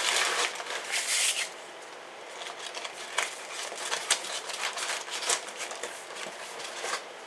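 Packing material crinkling and rustling as it is handled and set aside, loudest for the first second and a half, then faint scattered rustles and light clicks.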